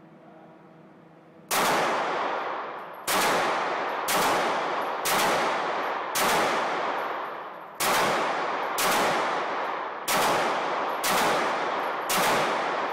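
Glock 17 9mm pistol fired ten times at a steady pace of about one shot a second, starting about a second and a half in. Each shot is followed by a long echo.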